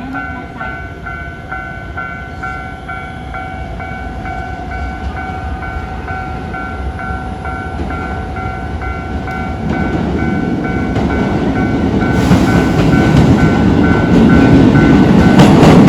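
Railway level-crossing alarm ringing in its standard low-tone setting, about two strokes a second, while a train approaches and passes, its rumble growing steadily louder from about ten seconds in until it drowns out the alarm near the end.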